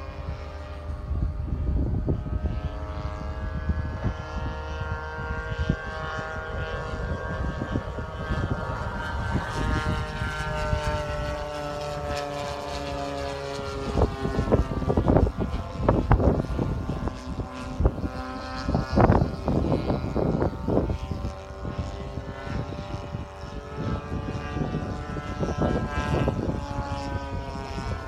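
Large radio-controlled model warbird's engine and propeller droning overhead, the pitch slowly rising and falling as it flies its passes. Several brief bumps break in over the second half.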